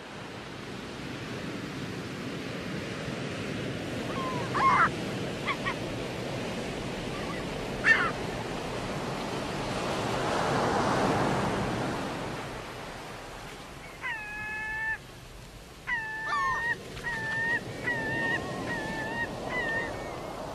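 Surf washing onto a sandy beach with wind noise, swelling as a wave breaks about halfway through. Two brief chirps early on, then a run of short, repeated honking calls over the last several seconds.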